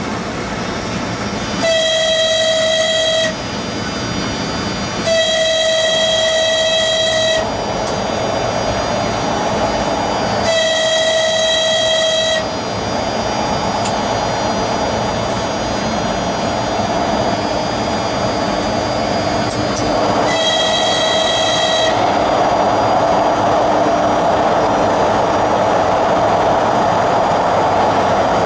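Train horn sounded four times, each a steady single note lasting one to two and a half seconds, over the train's constant running noise on the rails. The running noise swells near the end as the train enters the tunnel.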